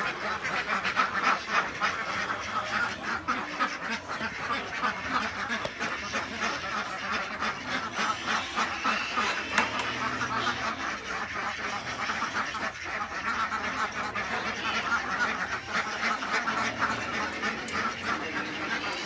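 A flock of laying ducks quacking continuously, many overlapping calls at a steady level.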